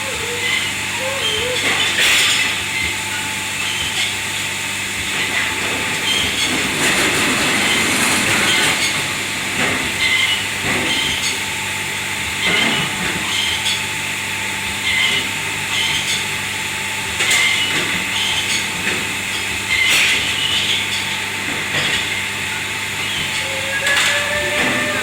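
Commercial kitchen dish-washing noise: a steady hiss and machinery hum, with dishes and utensils clattering and knocking every few seconds.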